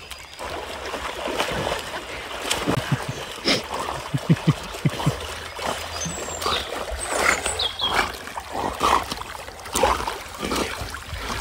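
River water splashing and sloshing as two dogs swim, with a run of uneven low thumps a few seconds in.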